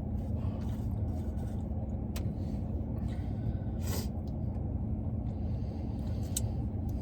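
A steady low rumble, with a few faint sharp clicks about two, four and six seconds in.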